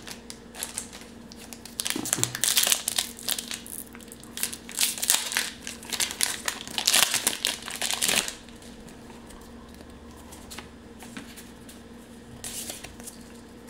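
Foil booster-pack wrapper of a Pokémon trading card pack crinkling and tearing as it is opened by hand, in a run of bursts for several seconds. After that it dies down to faint handling of the cards.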